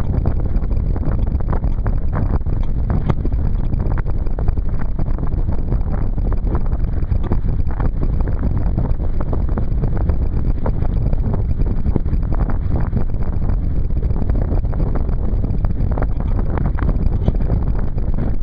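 Strong wind buffeting the microphone of a camera mounted on a Sunfish sailboat, over a continuous rush of lake chop splashing against the hull as the boat sails heeled.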